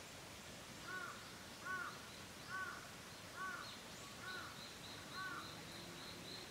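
A bird calling six times at an even pace, just under a second apart, each call a short rising-and-falling note. From about the middle, faint high chirps repeat about three times a second.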